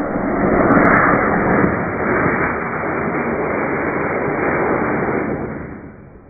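Estes model rocket's black-powder motor firing at liftoff: a loud rushing roar that fades away near the end.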